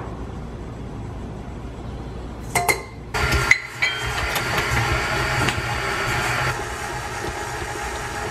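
A couple of knocks and a sharp click, then a KitchenAid tilt-head stand mixer's motor starts and runs with a steady whine as the flat beater creams butter and sugar. Its level drops a little about six and a half seconds in.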